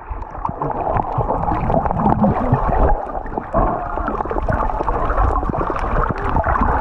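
Muffled underwater sound picked up by a submerged camera: water rushing and gurgling bubbles as a snorkeler dives down, with many small clicks and crackles.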